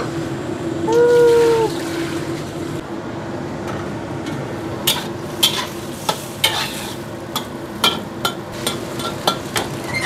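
A metal spatula scraping and clacking against a wok in irregular strokes while cabbage stir-fries and sizzles. Underneath runs a steady hum, and about a second in there is a short rising-and-falling tone.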